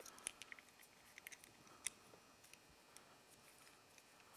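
Faint, scattered small clicks and ticks as the carburetor and its throttle cable are handled with gloved hands, most of them in the first two seconds.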